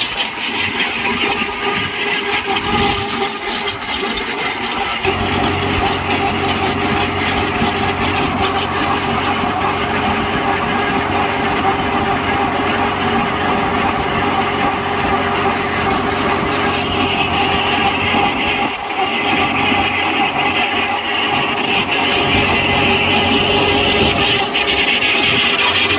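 Massey Ferguson 9500 Smart tractor running steadily under load, driving a tractor-mounted chain trencher that cuts and lifts soil. The engine hum grows stronger and steadier about five seconds in.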